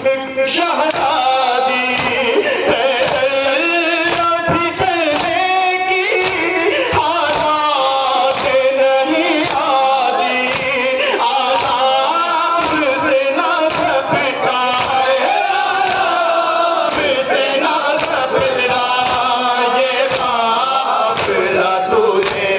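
Men chanting a Shia noha lament together, a lead reciter on a microphone with the group joining in, and hands striking chests in matam keeping the beat.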